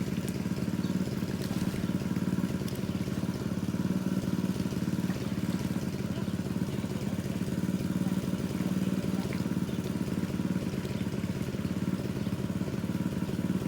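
Engine-driven water pump running steadily, pumping the water out of a fish pond.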